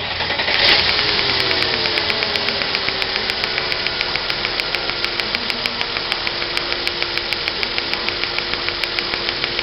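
1998 Mercedes ML320's 3.2-litre V6 catching and running once its no-spark fault is bypassed. Its speed settles over the first two seconds or so, then it runs steadily with a regular tick about six times a second.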